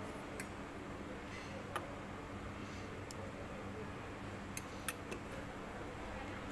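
Quiet steady background hum broken by a handful of faint, sharp ticks, three of them close together a little past the middle.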